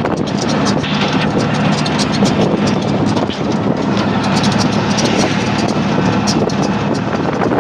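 A jeepney's engine running steadily close by, with wind buffeting the microphone.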